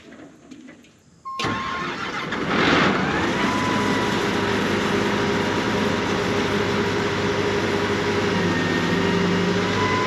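An engine starts up. Its noise comes in suddenly about a second in, surges briefly a second or so later, then settles into a steady run.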